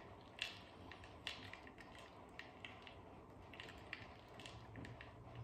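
Crushed ice being stirred in water in a plastic bowl with a pipe temperature clamp: faint, irregular small clicks and clinks of ice against the bowl and the clamp.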